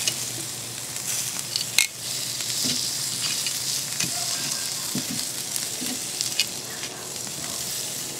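Turkey wings sizzling steadily on the cast iron grate of a charcoal kettle grill. Metal tongs clack on the grate now and then as the pieces are turned, with one sharp clack just before two seconds in.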